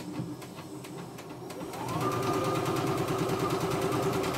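CNY E960 computerized sewing machine running, stitching a buttonhole in a fast, even stitch rhythm that speeds up and gets louder about two seconds in.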